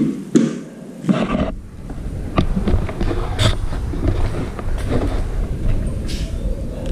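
Movement and handling noise: scattered knocks and clicks over a steady low rumble.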